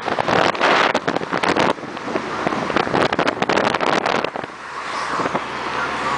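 Wind buffeting the microphone of a camera held out of a moving car's window, in irregular gusts. About four seconds in, the gusts give way to the steadier road and engine noise heard inside the car.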